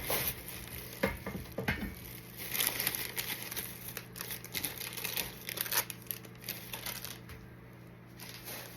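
A big bag being opened and rummaged through: irregular crinkling and rustling with a few sharp clicks, dying down near the end.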